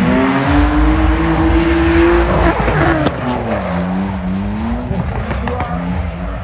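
Drift car engine revving hard with tyres squealing. The revs climb, drop about three seconds in, then rise again.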